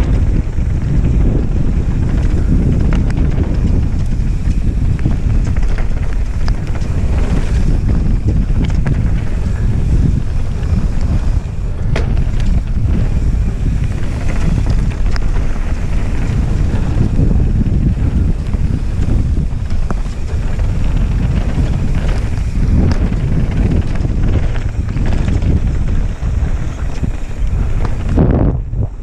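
Wind buffeting an action camera's microphone during a fast mountain-bike descent on a dirt trail: a steady loud low rumble, with occasional sharp knocks and rattles from the bike going over rough ground.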